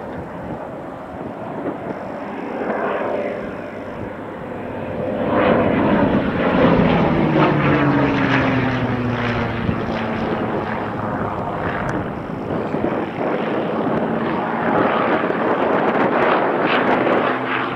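Hawker Hurricane's Merlin V12 engine and propeller during an aerobatic display pass, getting louder about five seconds in, with the engine note falling in pitch as the aircraft goes by, then holding steady.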